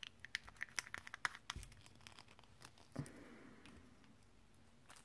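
Small plastic pots of nail glitter clicking and tapping against each other and the surface as they are picked up and set down in a row: a quick run of clicks in the first second and a half, then a short plastic rustle about three seconds in.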